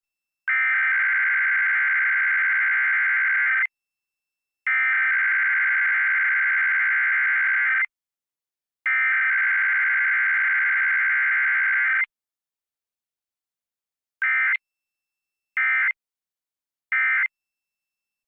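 Emergency Alert System SAME digital data bursts, a harsh screeching modem-like sound: three long header bursts of about three seconds each, a second apart, then three short end-of-message bursts near the end.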